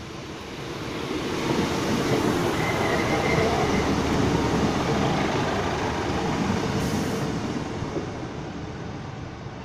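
Class 150 Sprinter diesel multiple unit running in close past along the platform, its diesel engine and wheels on the rails building up, peaking and fading as it slows to stop at the station. A brief thin squeal comes about three seconds in.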